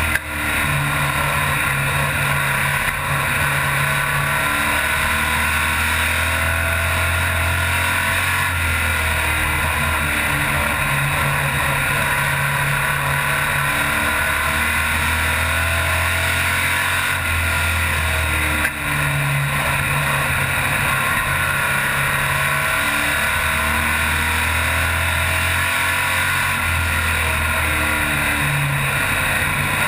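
A stock car's engine heard from inside the cockpit at racing speed, its note shifting every few seconds as it comes off and back onto the throttle around the oval. Steady wind and road noise runs underneath.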